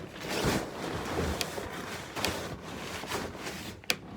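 Rustling handling noise from gear being moved about, with a few sharp clicks.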